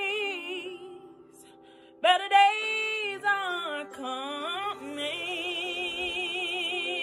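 A woman singing a gospel ballad with heavy vibrato. A held note fades out in the first second. After a short pause she sings a new phrase about two seconds in and ends on a long, wavering held note.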